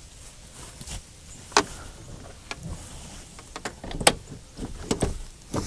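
Sharp clicks and knocks at irregular intervals, the loudest about one and a half and four seconds in: collar and truck hardware being handled while the hounds are collared up.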